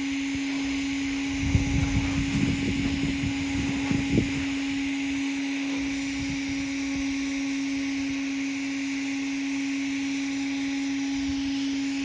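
TIG (GTAW) welding on carbon steel pipe at 140 amps during the cap pass: a steady hum and hiss from the arc and welding machine. From about one to four seconds in, uneven rough noise rides over it.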